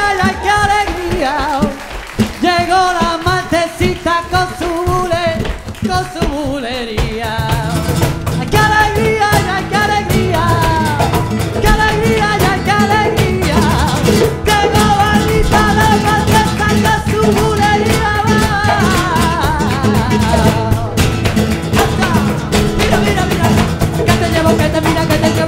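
Live flamenco music: a male singer's wavering, ornamented cante line over flamenco guitar and hand drums. About seven seconds in, the percussion fills out and the music grows louder and denser.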